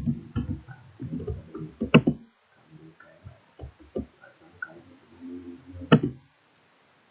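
Computer keyboard keys clicking as a line of SQL is typed, with three sharper key strikes (near the start, about two seconds in, and about six seconds in) and low, irregular murmur-like sounds between them.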